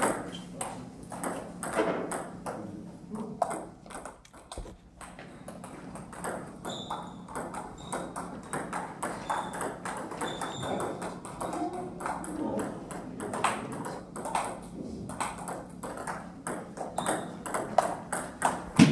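Table tennis balls clicking sharply off bats and tables during rallies, the hits coming irregularly through the whole stretch, including play at neighbouring tables.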